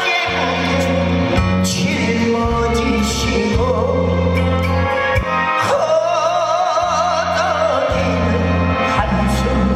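Korean trot song performed live: a male voice holds a long note with vibrato over a backing band with a steady bass line.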